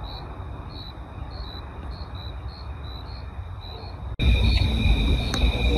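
Crickets chirping, about two chirps a second over a steady high trill, with a low rumble on the microphone. About four seconds in the sound cuts off sharply and returns louder.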